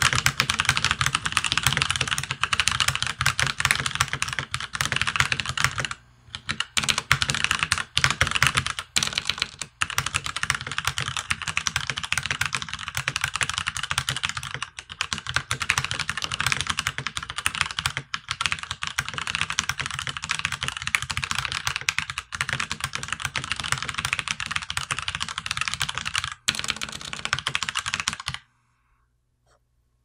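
Fast continuous typing on a Drevo Gramr mechanical keyboard with tactile Outemu Brown switches, doubleshot OEM keycaps and lubed stabilizers: a dense run of key clacks, with a short pause about six seconds in. The typing stops about a second and a half before the end.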